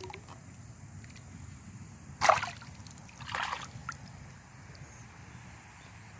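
Two splashes of water: a sharp one about two seconds in and a softer one about a second later.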